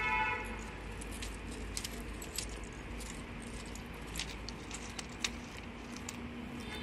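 Trackside ambience: a steady low rumble with a faint hum, scattered short sharp metallic clicks, and a brief pitched tone right at the start.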